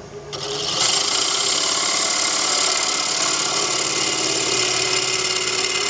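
Sharp bowl gouge cutting across the inside bottom of a wooden bowl spinning on a lathe: a steady hiss of the cut over the lathe's running hum, starting about half a second in.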